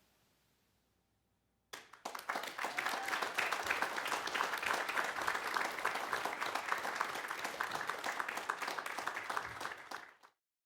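Audience applauding, starting about two seconds in and cutting off abruptly near the end.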